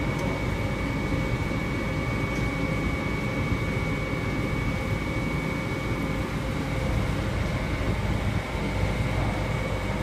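Continuous microwave dryer running: a steady industrial drone with a low rumble and a constant high-pitched whine over it.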